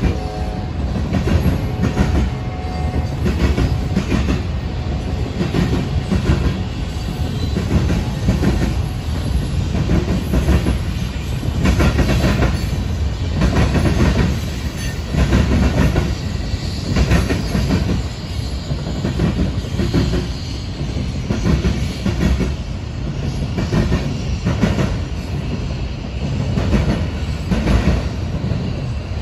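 Norfolk Southern mixed freight train's cars rolling past: a steady low rumble with the repeated clickety-clack of steel wheels over rail joints.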